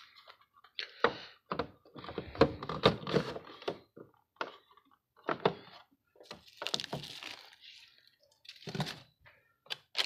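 Items being handled and set down inside an open refrigerator: irregular knocks and clunks of containers against the plastic shelves and door bins, with a stretch of rustling about seven seconds in.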